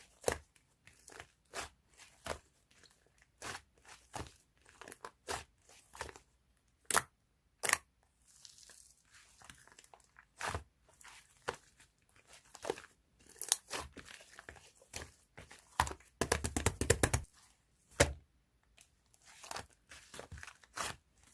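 Close-up handling noise: irregular sharp clicks, taps and crinkles, with a quick rattle of rapid clicks about sixteen seconds in.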